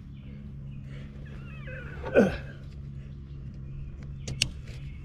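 Tent strap hardware being hooked up at the rear of a pickup: a couple of sharp clicks just after four seconds in. A steady low hum runs under it, and there is one short, loud cry falling in pitch about two seconds in.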